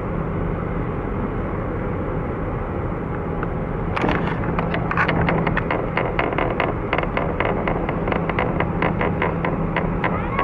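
Low, steady rumble and hum of a large container ship's engines passing close by. From about four seconds in, a fast, irregular run of sharp clicks sounds over it.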